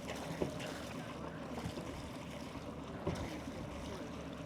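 Harbour ambience: a boat engine hums low and steady under light wind noise on the microphone, with two small knocks, one about half a second in and one just after three seconds.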